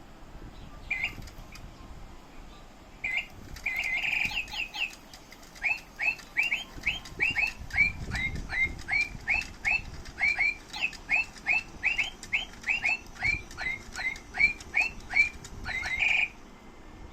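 Short, bright bird-like chirps: a few scattered ones at first, then a fast, regular run of about two to three a second that stops shortly before the end.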